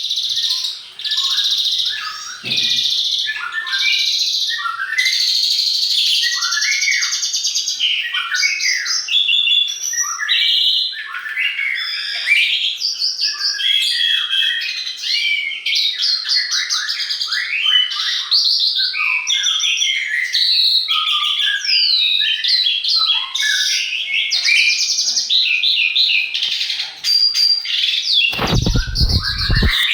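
Dense songbird chorus: many overlapping chirps, trills and whistled phrases, with no pause. Near the end there is a loud low rumble lasting about a second and a half.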